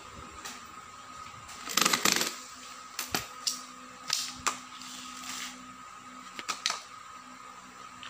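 Clicks and light plastic-and-metal knocks from an assembled mesh office chair being handled and swiveled by hand. The loudest is a quick cluster of knocks about two seconds in, then scattered single clicks. A faint steady hum runs underneath.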